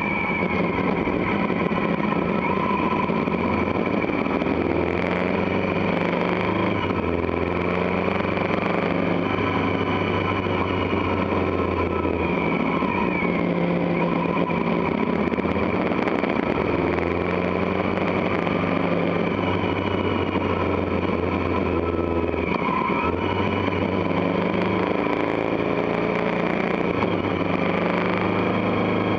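Motorcycle engine running on the move at moderate road speed, with steady wind noise on the microphone. The engine note shifts in pitch a few times as the rider changes throttle.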